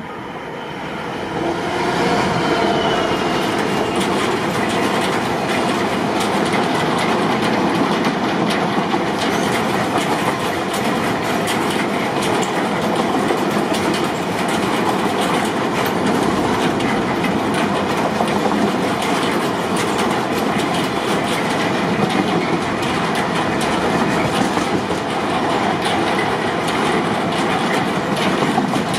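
Train passing through at speed: after a build-up over the first couple of seconds, a steady rush of wheel-on-rail noise with rapid clicking over the rail joints.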